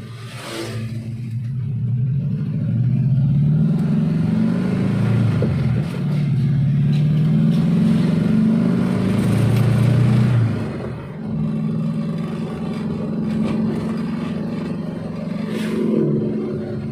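Daihatsu Espass engine running and being revved, its pitch rising and falling unevenly, then dropping back about ten and a half seconds in to a steadier, lower run.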